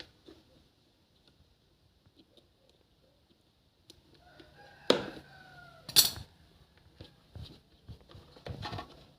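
A rooster crowing in the background, a drawn-out falling call about four seconds in. Two loud sharp knocks come about five and six seconds in, followed by lighter clicks.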